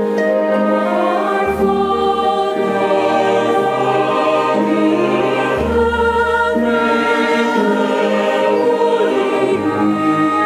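A choir singing a slow sacred piece with accompaniment: long held chords, with deep bass notes coming in about a second and a half in and again just past the middle.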